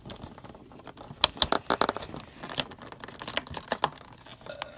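A LEGO advent calendar's perforated cardboard door being pushed in and torn open by fingers: an irregular run of sharp cracks and tearing, densest about a second or two in.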